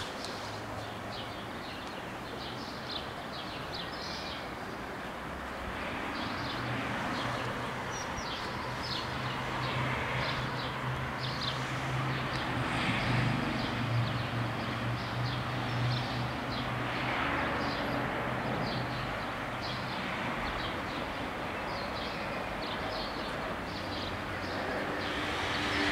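Low steady hum of an approaching ALn 668 diesel railcar, building gradually from a few seconds in over a broad outdoor hiss, with small birds chirping on and off.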